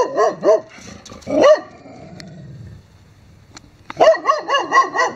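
Large black Labrador-type dog barking in quick runs of about five barks a second: a run at the start, a single bark about a second and a half in, and another run from about four seconds in.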